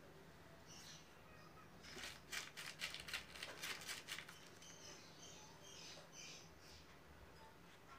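Quiet room with a burst of rapid clicks and rustles from about two to four seconds in, from handling close to the microphone. Faint light scratching appears here and there.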